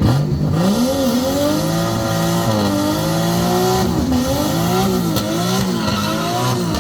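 Car engine revving hard from idle, its pitch rising sharply at the start and then swinging up and down several times.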